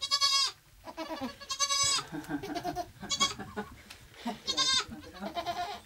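Goats, a doe with newborn kids, bleating: four short, high bleats about a second and a half apart, with softer, lower calls between them.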